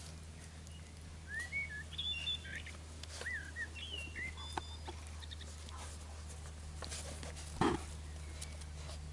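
Garden bird chirping, a run of short rising-and-falling calls in the first half, over a steady low hum. Faint scattered clicks, and one brief louder noise near the end.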